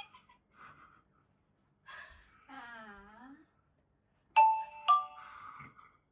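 A two-note chime sound effect, a doorbell-style ding-dong, about four seconds in. Before it comes a short pitched sound that dips and rises again.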